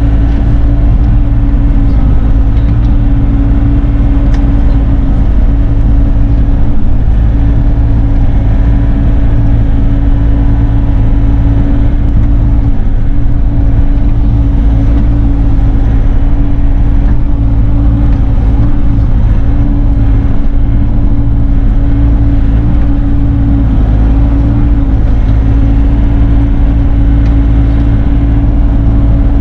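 Bobcat E42 mini excavator's diesel engine running steadily under work, a loud, constant drone with a steady hum that barely changes.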